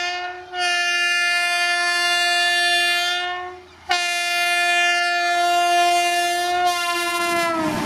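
Indian Railways electric locomotive's air horn sounding in two long, steady blasts: one of about three seconds, a brief break, then another of nearly four seconds that drops in pitch near the end.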